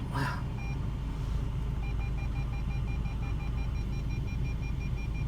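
Rapid, evenly pulsed electronic beeping of a car's reversing warning, starting about two seconds in, as reverse is engaged to bring up the rear camera. Under it, the steady low rumble of the idling engine heard inside the car.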